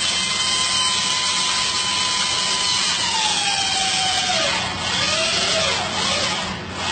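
Electric drill running under load, a steady motor whine with dense grinding noise. About three seconds in its pitch slides down, then wavers up and down as the speed changes.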